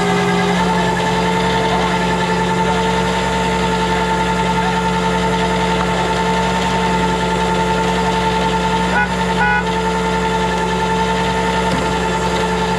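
Rollback tow truck's engine running steadily, its drone stepping up slightly in pitch about half a second in and then holding.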